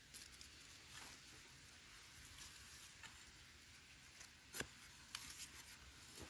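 Faint scratching and crumbling of dry soil as earth is scraped away by hand, with a few small sharp ticks, the clearest about four and a half seconds in.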